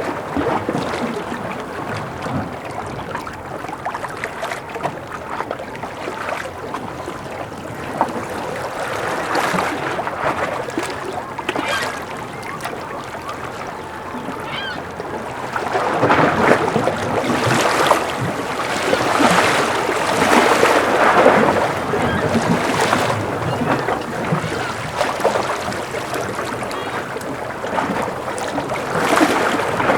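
Gentle sea waves lapping and washing against a breakwater, in a steady wash with several louder surges about halfway through.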